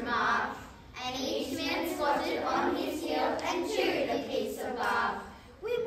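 A children's class choir singing together in phrases, with short breaks about a second in and near the end.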